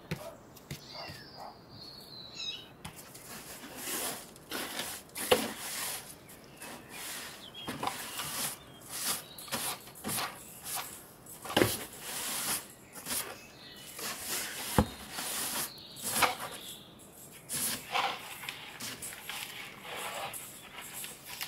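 Cleaning sounds: a long run of irregular brushing and rustling strokes, with two sharp knocks in the middle. A faint high kitten mew comes about a second in.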